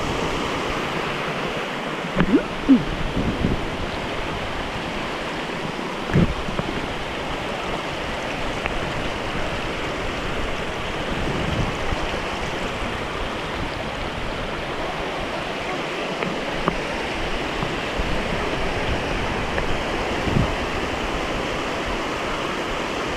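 A rocky creek rushing over stones and small cascades in a steady, even rush. A few brief low thumps stand out, about two to three seconds in, at six seconds and near the end.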